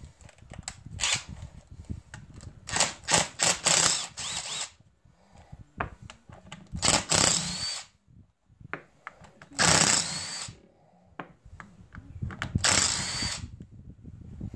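Cordless impact driver backing screws out of the cover of a UTV rack-and-pinion steering gearbox, running in about five short bursts of a second or two with pauses between. The whine rises at the end of some bursts as a screw comes free.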